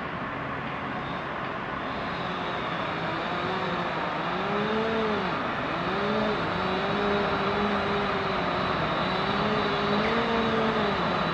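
Wheeled excavator working. Its diesel engine and hydraulics rise and fall in pitch several times from about three seconds in as the boom is raised, over a steady mechanical rumble.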